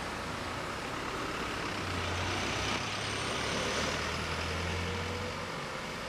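Traffic noise beside a construction site, with a heavy vehicle's low engine hum swelling about two seconds in and dying away near the end as it passes.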